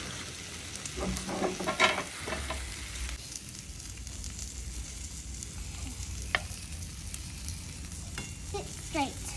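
Pork and chicken sizzling on the grate of a charcoal kettle grill. Metal tongs clink and scrape against the grate as the meat is turned: a cluster of clicks between one and two and a half seconds in, and one sharp click about six seconds in.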